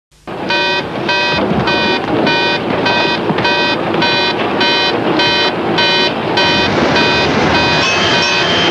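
A warship's alarm sounding in even, repeated pulses, a little under two a second, over steady background noise. Near the end a steady high tone joins it.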